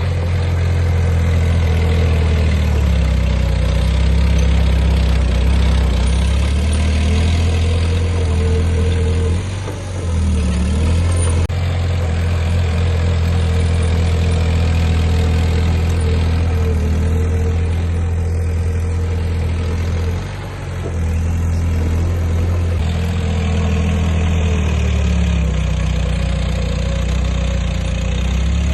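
Heavy diesel engine of earthmoving machinery running at work, its speed rising and falling several times, with brief drops in loudness about a third and two-thirds of the way through.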